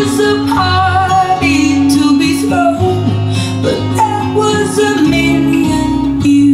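Music: a song with guitar and singing.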